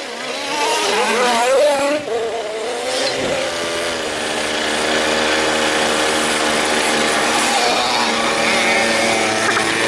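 Babetta moped's 50 cc two-stroke engine running while riding a dirt track, its pitch wavering at first, then holding steady after a break about two seconds in, with a rushing noise over it.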